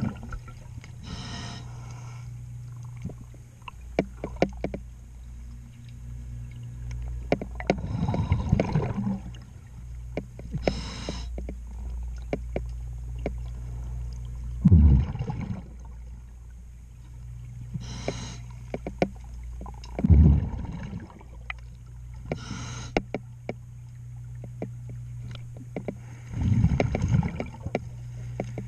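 A diver's regulator breathing underwater: a hiss on each inhale and a rush of exhaust bubbles on each exhale, every few seconds, over a steady low hum. Scattered clicks and scrapes come from cleaning growth off a boat's hull.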